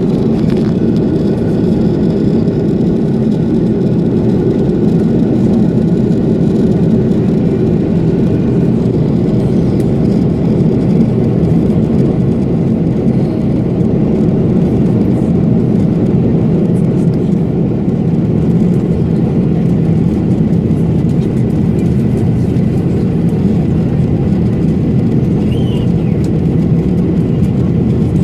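Steady cabin noise inside an Airbus A330-300 airliner, the engines and airflow making an even, unchanging rumble.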